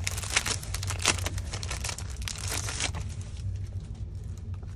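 Thin clear plastic wrapping on a stack of notebook paper crinkling and crackling as it is handled, dense for about three seconds, then dying away.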